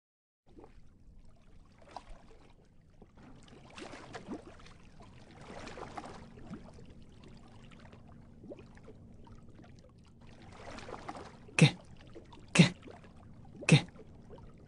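Cartoon underwater sound effects: soft water swishing and bubbling, swelling and fading, then three short, loud sounds about a second apart near the end.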